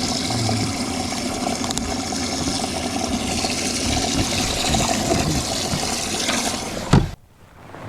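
Water rushing steadily with a motor hum underneath. It cuts off abruptly with a thump about seven seconds in.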